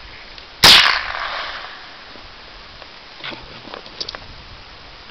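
A single shot from a Remington Nylon 66 semi-automatic .22 Long Rifle, a sharp crack under a second in, its report trailing off over about a second. A few much fainter clicks follow about three to four seconds in.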